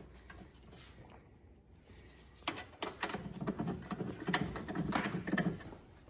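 Quiet at first, then from about two and a half seconds in a quick, irregular run of small metallic clicks and rattles for about three seconds as a brake caliper mounting bolt is run in.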